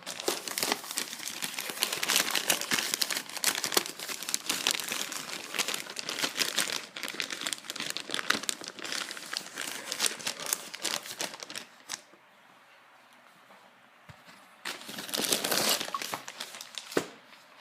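Plastic wrapping film being crinkled and pulled off packaging boxes, dense crackling for about twelve seconds, then a pause and another short burst of crinkling, with a sharp click near the end.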